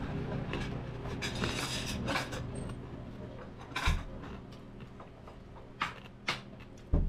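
Close-up eating sounds of crispy pata, deep-fried pork knuckle: crackly crunching and tearing early on, then a few sharp clicks and knocks of utensils against a plate.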